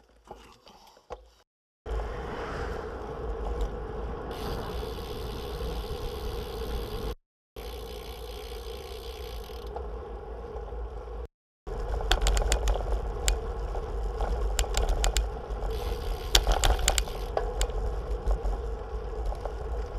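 Bicycles riding along a paved country road: steady wind and tyre noise on the microphone. From about twelve seconds in come scattered sharp clicks and rattles as the bike runs over cracked, patched asphalt.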